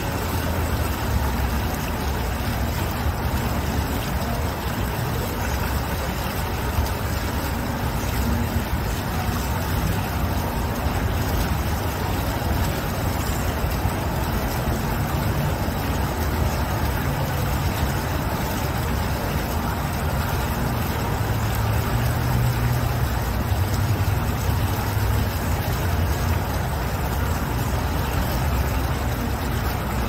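Bubbler-style fountain jet gushing up and splashing back into its pool: a steady rush of falling water with a low rumble underneath that swells slightly past the middle.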